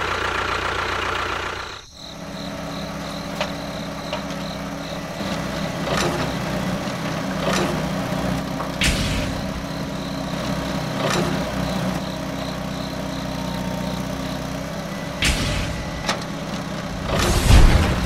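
Small motors of a DIY model tractor and mini excavator running with a steady hum, broken by a few knocks and scrapes, with a louder clatter near the end.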